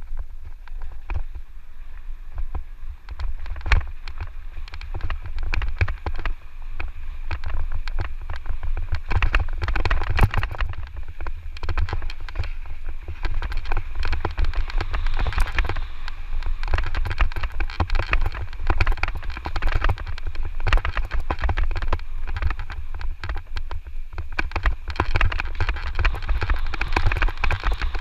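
Mountain e-bike rattling and clattering over a rough dirt trail, with many irregular knocks and tyre crunch, and steady wind buffeting the microphone.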